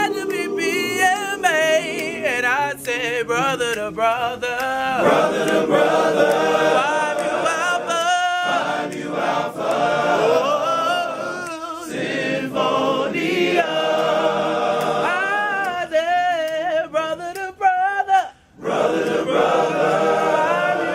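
Male vocal group singing a cappella in harmony, several voices at once with wavering vibrato on the upper lines and a few short breaks between phrases.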